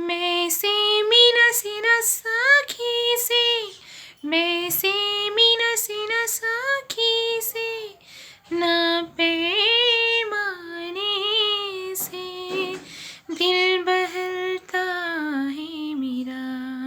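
A woman singing a Hindi song solo, her voice alone with no accompaniment, in a high, melodic line of sustained, sliding notes.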